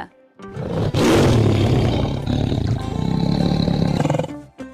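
Tiger roaring: one long, rough roar that builds in about half a second in, holds for about three seconds, and fades out near the end.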